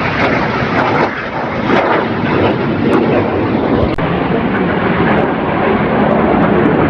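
Formation of Canadair CT-114 Tutor jets flying over, a loud, steady jet noise.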